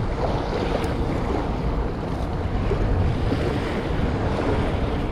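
Wind buffeting the microphone, over small waves lapping at the shoreline.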